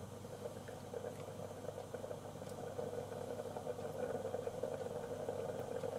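Lidded pot of nameko mushroom soup simmering on the hob, bubbling steadily and growing louder, with a few faint ticks.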